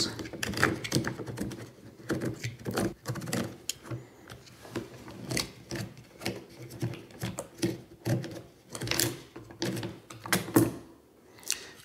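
Plastic clicking and clacking as the locking knob on a Stonecho mini electric chainsaw's side cover is turned by hand to unscrew the cover from the bar-mounting screw. The clicks come in an irregular run, several a second.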